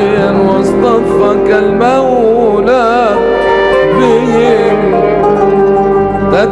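A man singing an Egyptian devotional song in long, ornamented phrases that waver in pitch, over a sustained instrumental accompaniment.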